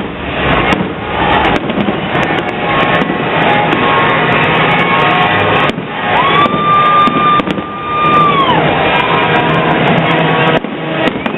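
A fireworks display: many bangs and crackles in quick succession, with music playing along. A whistling tone rises, holds for about two seconds and falls away in the middle.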